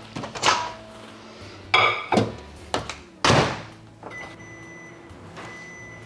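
Over-the-range microwave oven in use: its door and the glass cup clunk in several knocks, the door shutting with a loud thunk about three seconds in. Then a low steady hum starts and the microwave beeps three long, even beeps about a second apart.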